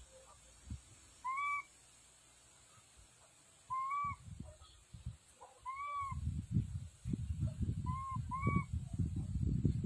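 An animal's short, arched hooting calls, five in all, the last two close together. A low rumbling noise joins about six seconds in.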